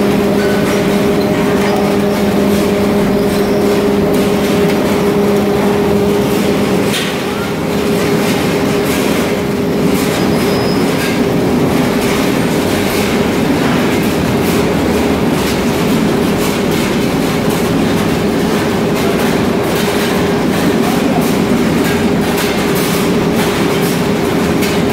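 Onion grading and packing machine running: a steady hum with a dense rattle and knocking of onions tumbling over the rollers and conveyor. The lower part of the hum drops out about seven seconds in.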